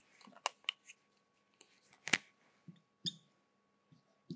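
Felt-tip marker writing on a whiteboard: a string of short taps and scratchy strokes, the loudest about two seconds in, with a brief squeak of the tip just after three seconds.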